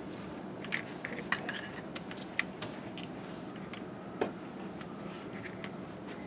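Scattered small clicks and taps of plastic parts and wires being handled on a tabletop, over a faint steady hum.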